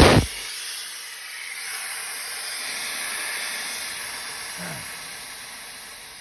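A sudden loud bang as the air-conditioning pipe on a BMW E91 335i bursts, followed by a steady high hiss of escaping gas that slowly fades.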